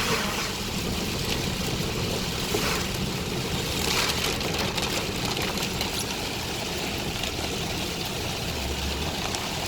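Steady noise inside a car cabin driving through blinding heavy rain at around 40 to 50 mph with a window cracked open: rain on the car and tyres hissing on the flooded road.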